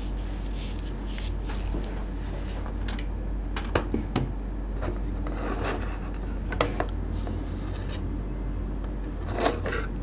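Handling noise: rubbing with a handful of sharp light clicks and knocks as a circuit board is moved about by hand, over a steady low background rumble.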